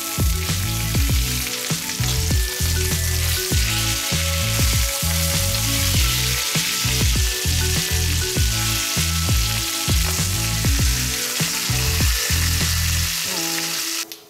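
Pork belly slabs sizzling as they fry in hot oil in a stainless steel pan, turned over now and then. Background music with a steady beat plays underneath, and the sizzle cuts off suddenly near the end.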